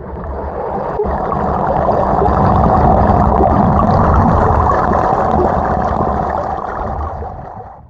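Muffled rush of river water, a steady low noise with no distinct tones, fading in at the start and fading out near the end.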